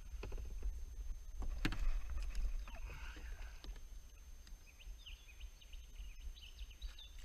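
Water moving around a kayak under a steady low rumble, with one sharp knock about a second and a half in and a few lighter clicks.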